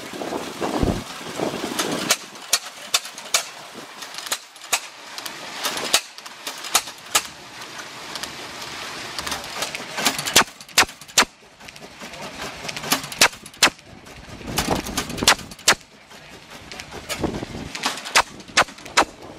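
Hit-and-miss gas engine running a belt-driven centrifugal water pump: its exhaust fires in irregular runs of sharp pops, several a second, with gaps between runs while it coasts on its flywheels under governor control. Water from the pump splashes into a stock tank.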